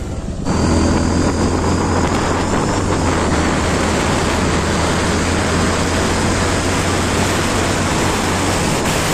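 Motorcycle cruising at a steady speed: loud wind rush across the microphone over the low, steady hum of the engine.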